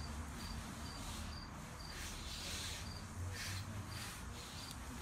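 Cricket chirping steadily, a short high chirp about twice a second, with a few brief rustles.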